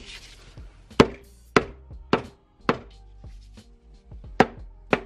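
Repeated sharp knocks on the aluminium NV-T350 transmission case, about two a second with a pause in the middle, each leaving a brief metallic ring. The case halves are being tapped together over their guide dowels.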